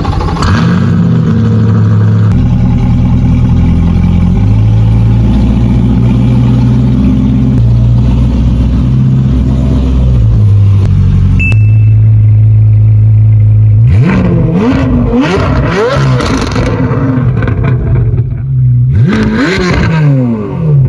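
Chevrolet Corvette C8 Z06's flat-plane-crank V8 running loud and steady at idle, then revved twice, once about two thirds of the way through and again near the end, the pitch climbing quickly each time.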